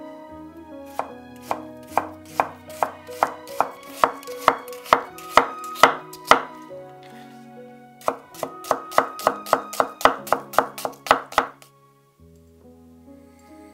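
Chef's knife slicing an onion into thin rings on a wooden cutting board, the blade knocking the board at about two strokes a second and speeding up. After a short pause a second, faster run of strokes follows. Soft background music plays throughout.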